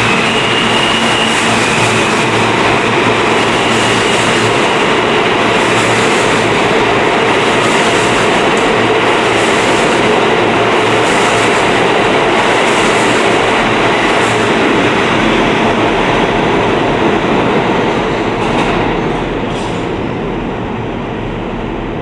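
New York City Subway R160 train running through the station, a dense rumble with a clatter repeating every second or two from the wheels, and a faint high whine early on. The sound eases off near the end as the train pulls away.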